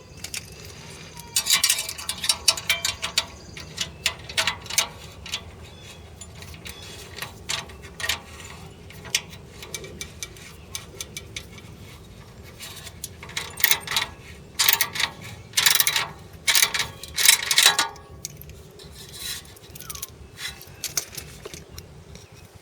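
Irregular metallic clinking and rattling: runs of sharp clicks, densest at about 1.5 to 3 seconds in and again from about 13 to 18 seconds in.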